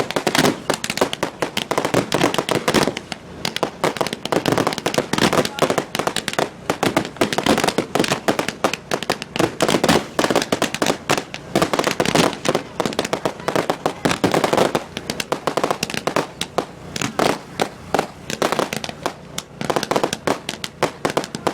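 Fireworks going off in a dense, near-continuous barrage: rapid sharp bangs and crackling, many a second.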